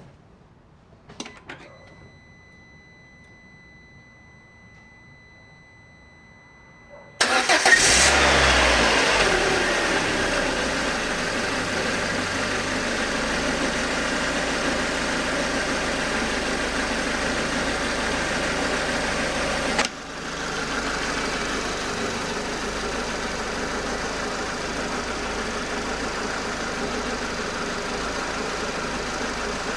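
Peugeot/Citroën TU5JP4 (NFU) 1.6 16-valve petrol four-cylinder: a click and a steady electronic tone with the ignition on, then the engine cranks and catches about seven seconds in, flares up and settles into a steady idle. The level drops briefly about 20 s in before the idle carries on; the owner is asking whether the engine noise is abnormal.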